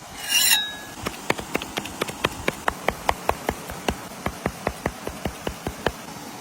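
Knife chopping on a cutting board: rapid, even knocks, about five a second, after a short, loud scrape at the start.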